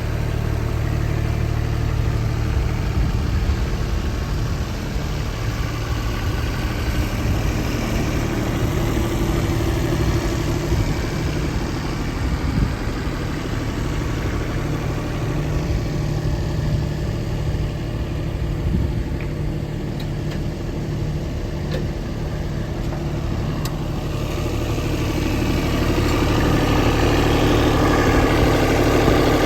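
JCB 18Z-1 mini excavator's small diesel engine running steadily, getting somewhat louder in the last few seconds.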